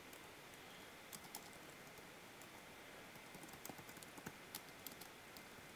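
Faint, scattered keystrokes on a computer keyboard, irregular taps with a couple about a second in and a quicker run of them around four to five seconds in.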